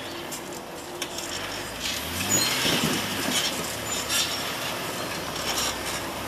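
Off-road 4x4 crawling over rocks: its engine runs low under repeated scrapes, knocks and brief squeals.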